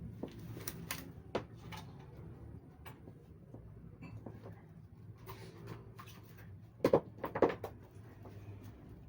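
Scattered sharp clicks and taps over a steady low hum, with the loudest few knocks close together about seven seconds in.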